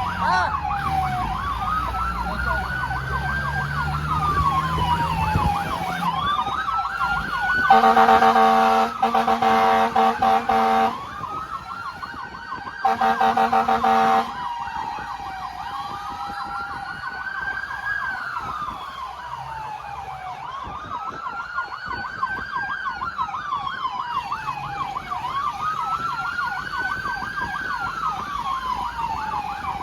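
Fire truck sirens: a slow wail rising and falling every four to five seconds over a faster warbling siren. Two long, loud horn blasts come about eight and thirteen seconds in.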